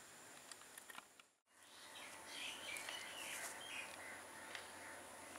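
Faint outdoor ambience with birds chirping, cutting out for a moment about a second and a half in, then with busier chirping.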